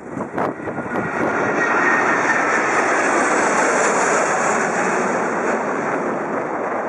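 Airbus A330-300's Rolls-Royce Trent 700 turbofans at takeoff thrust as the jet climbs out and passes overhead. A loud jet roar swells about a second in, with a high whine slowly falling in pitch, and eases slightly near the end. Wind buffets the microphone in the first second.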